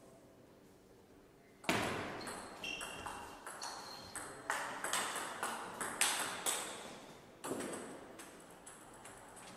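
Table tennis rally: the ball clicking off rubber bats and bouncing on the table, roughly two sharp hits a second with a short echo in a large hall. The rally starts about two seconds in and ends at about seven and a half seconds with a last hard hit.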